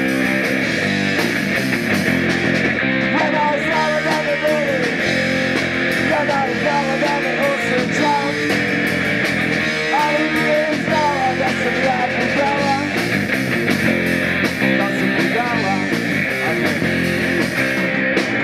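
Live rock band playing a song, with electric guitar, bass and drums, and a man singing the melody into a microphone.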